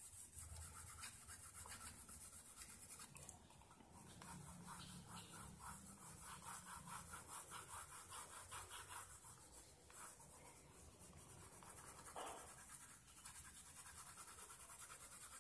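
Faint scratching of a soft B graphite pencil shading on paper: rapid back-and-forth hatching strokes, several a second, with short pauses as the hand moves to a new area.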